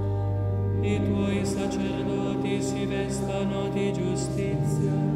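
Liturgical chant: voices singing long held notes over a sustained low note, which steps up to a higher pitch near the end.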